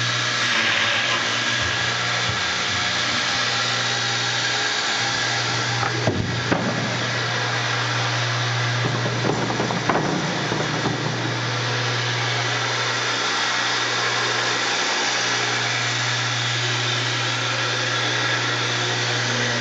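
2006 Omal CNC cabinet door hinge boring and inserting machine running: a steady hum from its spinning drilling heads, with a few sharp clicks about six and ten seconds in.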